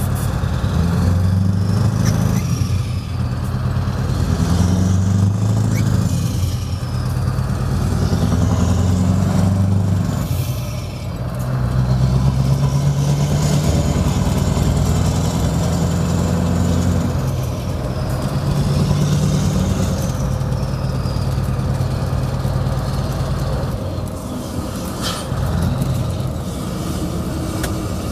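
Scania 164L's 580 hp V8 diesel with an open exhaust, pulling away and accelerating through several gear changes: the deep engine note climbs and drops back at each shift. A high turbocharger whistle rises and falls with each pull, and there are a couple of short air hisses near the end.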